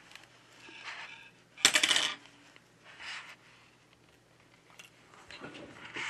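A small pry pick drops onto the hard work table and clatters briefly, about two seconds in. Quieter scraping from the pick being worked along the screen edge to cut the old adhesive comes before it and again near the end.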